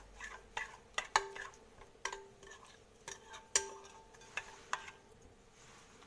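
A metal spoon stirring thick semolina batter in a glass mixing bowl, knocking against the glass about a dozen times with short, ringing clinks. The clinks stop about five seconds in.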